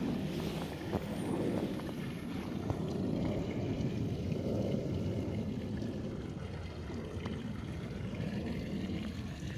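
Low rumbling outdoor noise that swells and fades about once a second, with a few faint clicks: wind on the phone's microphone mixed with the crunch of barefoot steps in soft snow.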